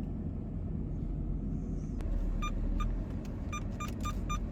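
Pickup truck engine running with a low rumble while parking; about halfway in, the parking sensor starts beeping in short, evenly pitched beeps that come quicker and quicker as the truck nears the obstacle.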